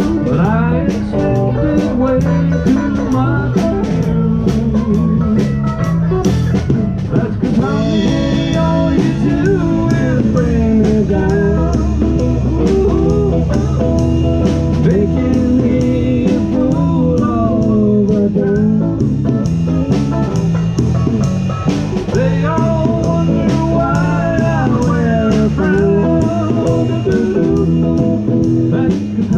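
Live rock trio of electric guitar, electric bass and drum kit playing a blues-rock number. A lead line of bending, sliding notes runs over steady bass and drums with cymbal hits.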